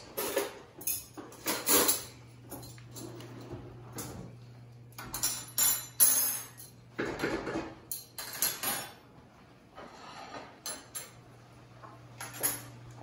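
Metal forks and spoons clinking together and being set down on plates and a hard countertop, in a string of irregular clatters.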